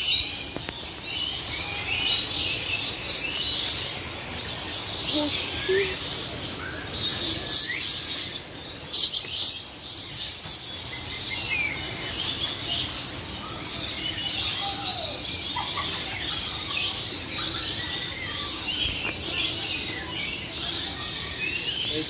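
A flock of lories calling together: a dense, continuous chatter of high chirps and screeches with many short rising and falling notes. A couple of sharp clicks about nine seconds in.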